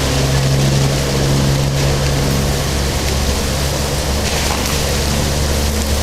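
Boat's diesel engine running with a steady low drone, under a rushing wash of water and wind noise.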